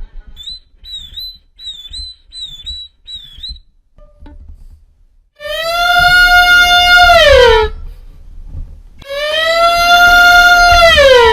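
Violin playing sound effects: first a run of about five short, high, squeaky notes that each dip and rise in pitch, then two long, loud bowed notes, each held steady for about two seconds before sliding down in pitch.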